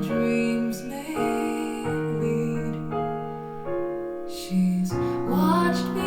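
Recorded piano music played back through a pair of MarkAudio Alpair 5G full-range speakers in back-loaded horn cabinets and picked up by room microphones. It is a slow piano passage of sustained notes with changing chords, amplified by a home-built line amplifier with a TROP-009 discrete op-amp.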